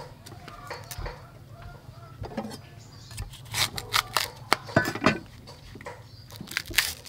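Fresh bamboo shoot being peeled and cut on a wooden chopping board: tough husk leaves torn off by hand and a steel cleaver cutting into the shoot, heard as irregular sharp clicks, cracks and knocks that come thickest from about halfway through.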